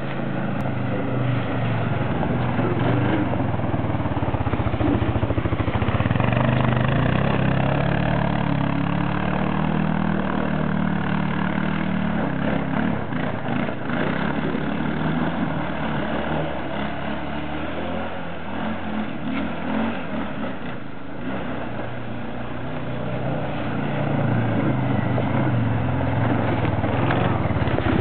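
A 2001 Arctic Cat 500 ATV's single-cylinder four-stroke engine revving up and down as the quad drives through mud in two-wheel drive. It is louder a few seconds in and again near the end.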